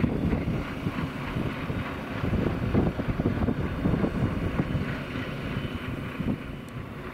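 Diesel engine of a ČD class 841 (Stadler RegioShuttle RS1) railcar running as it rolls slowly in to stop at the platform, with wind buffeting the microphone.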